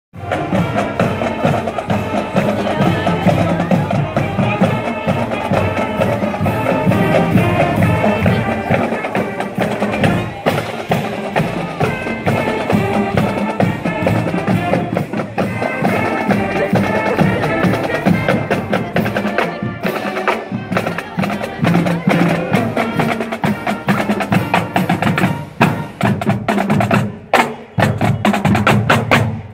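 High school marching band playing as it marches, brass and drums together for much of the time. Near the end the drumline of snare and bass drums plays a cadence on its own.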